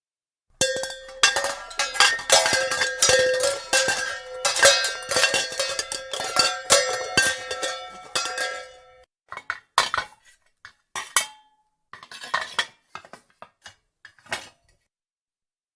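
Metal pots and pans clattering and banging together in a dense run of impacts, with ringing metallic tones, for about eight seconds; after that, a handful of separate knocks and clinks.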